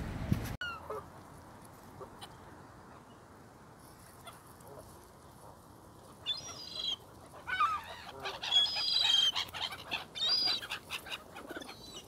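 Canada geese honking in repeated clusters of calls, starting about six seconds in and loudest a little after the middle.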